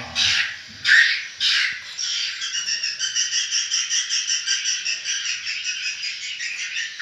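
Swiftlets calling inside a swiftlet nesting house: a few loud, harsh chirps in the first two seconds, then a steady, rapid twittering chorus. The lure-call playback is switched off, so these are the live birds.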